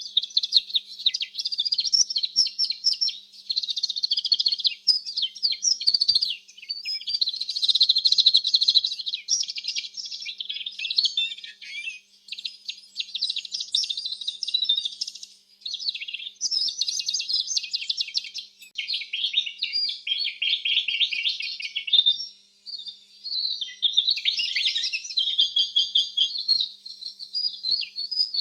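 Domestic canary singing: a continuous song of rapid high trills, rolls and warbling chirps in phrases of a few seconds, with brief pauses between phrases.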